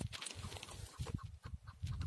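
Chukar partridge calling: a run of short clucking notes.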